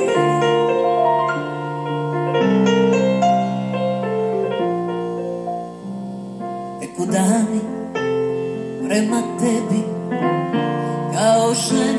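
Electric keyboard playing slow held chords, heard through a television's speaker. A woman's singing voice, with vibrato, comes back in about seven seconds in.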